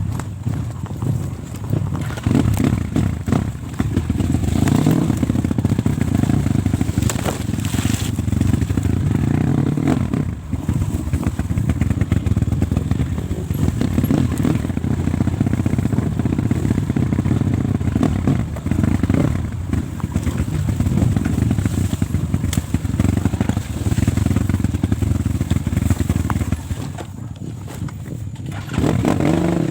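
Small trail motorcycle engines running on a dirt trail, the engine note rising and falling with the throttle, with scattered clatter. The engine sound dips briefly about ten seconds in and again near the end.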